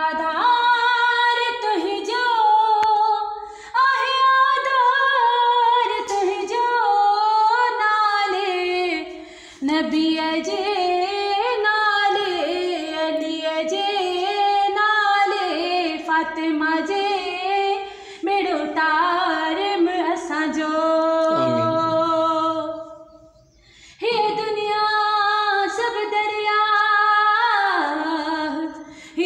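A woman singing a devotional prayer song (dua) unaccompanied, in long, drawn-out melodic lines, with a short pause about three-quarters of the way through.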